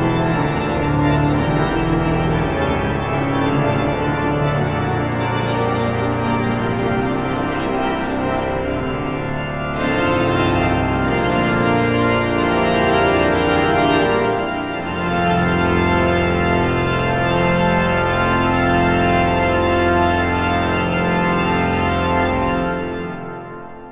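Large church pipe organ playing full, sustained chords with deep bass, the harmony shifting about ten and fifteen seconds in. Near the end the last chord is released and dies away in the church's reverberation.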